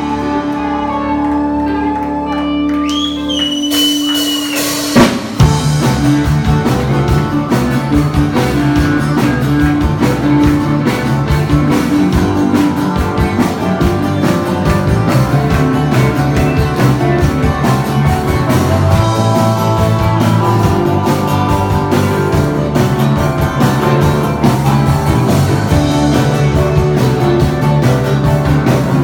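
Instrumental rock music: a held chord opens, then about five seconds in the full band with guitar and drums comes in and plays steadily.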